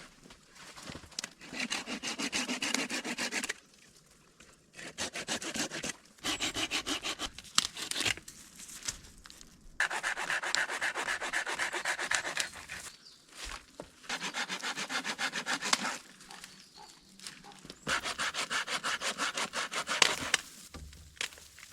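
Hand saw cutting through wood in several bouts of quick back-and-forth strokes, with short pauses between bouts.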